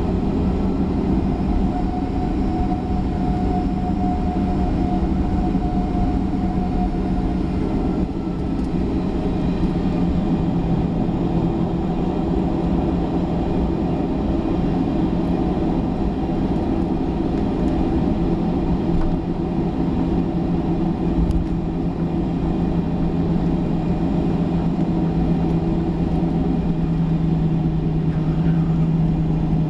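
Cabin noise of a Boeing 737-800 taxiing, its CFM56-7B turbofan engines running at low taxi power: a steady low hum with a constant tone under the rush of air and machinery.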